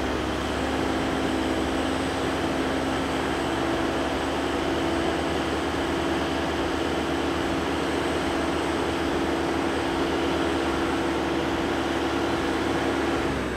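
A telehandler's engine running steadily as its boom is worked, with an even hum held throughout.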